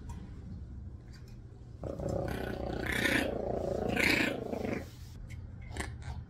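Yorkie Biewer puppy growling for about three seconds, starting about two seconds in, as he resists being combed for knots. A steady low hum runs underneath.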